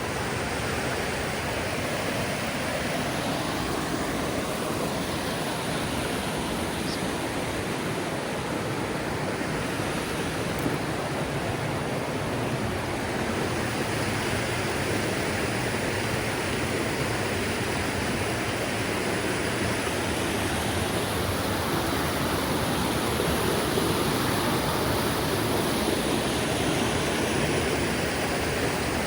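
Whitewater of Staircase Rapids on the North Fork Skokomish River rushing steadily over rocks.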